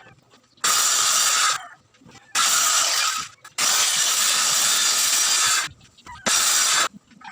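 A power tool working wood in four short bursts of hissing noise that start and stop abruptly, with near-quiet gaps between; the longest burst lasts about two seconds, near the middle.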